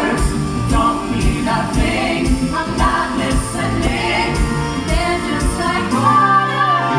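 Stage-show pop music: singing over a steady drum beat.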